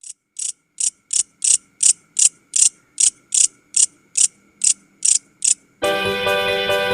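Grasshopper (locust) stridulating: a run of about fifteen short, high buzzes, roughly two and a half a second. Music comes in near the end.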